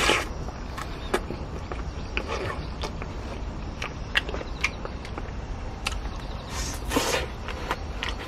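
Close-up eating sounds of a person sucking and chewing sauced fried chicken off the bone: wet mouth clicks and smacks throughout, with a loud sucking noise at the start and another about seven seconds in.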